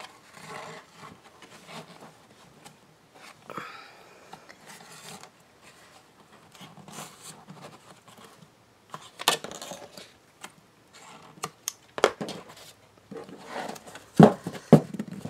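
Soft rustling and scraping of thread and paper as the last knot of a hand-sewn Coptic stitch binding is tied, then several sharp knocks and taps in the second half as the finished book is closed and handled on the table, loudest near the end.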